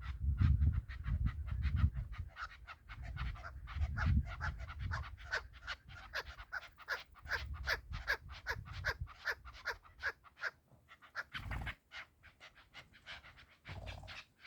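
Chukar partridge calling: a long run of short clucking notes, about three a second, fading somewhat toward the end, with a low wind rumble under it in the first half.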